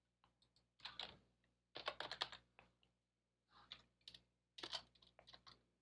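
Faint typing on a computer keyboard, in four short bursts of quick key clicks.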